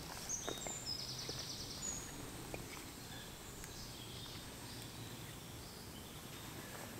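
Quiet woodland background with a few faint, high bird calls in the first second or so, and a few soft scattered crackles from a small wood campfire.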